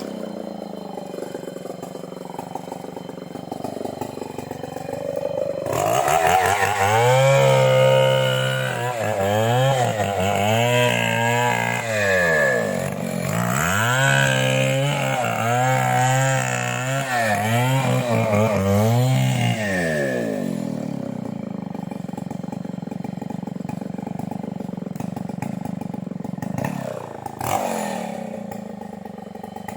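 Stihl two-stroke chainsaw running at a low, steady speed, then from about six seconds in revving up and dropping back several times in a row. It settles back to a steady lower speed for the last third.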